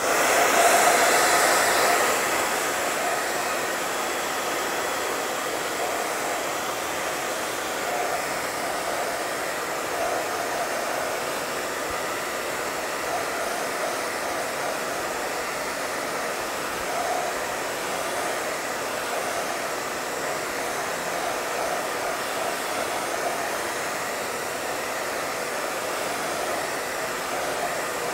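Handheld hair dryer blowing steadily, drying a freshly brushed coat of paint or varnish. It comes on at once, is a little louder for the first two seconds, then holds a level rush.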